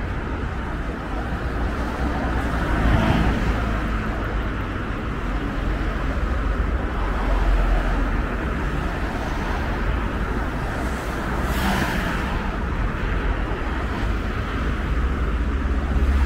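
Road traffic on a city street: cars passing close by over a steady low rumble, with louder passes about three seconds in and again around twelve seconds.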